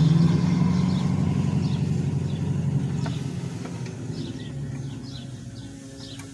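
A motor vehicle's engine running close by, loudest at the start and fading steadily away over several seconds, as a vehicle passing and receding.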